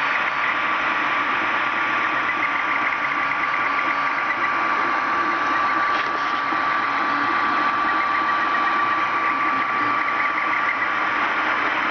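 Creality Ender 3 3D printer running a print: its fans give a steady whir with a constant tone, and the stepper motors add runs of quick, rapid chirps as the print head moves.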